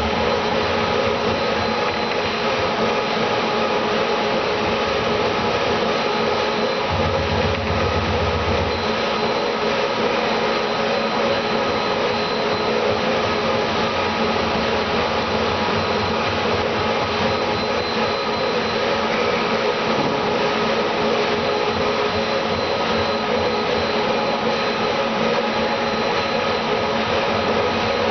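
A motor-driven machine running steadily without pause, an even whirring noise with several faint steady tones in it.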